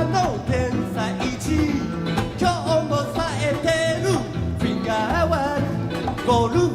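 A song played back from a cassette tape recording: guitar-band music with a bending lead melody over a steady accompaniment.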